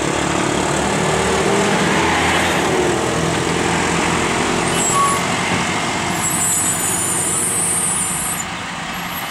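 Diesel engine of a heavily loaded lorry running steadily under load as it crawls round a hairpin bend, with a high hiss for about two seconds past the middle. The engine gets quieter near the end.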